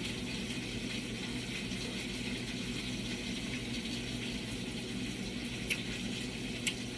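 Chicken frying in a pan: a steady background sizzle, with a few faint clicks near the end.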